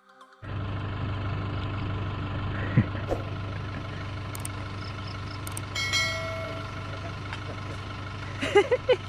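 Chevrolet pickup's diesel engine idling steadily, starting about half a second in, with a couple of light clicks and a short chiming tone partway through.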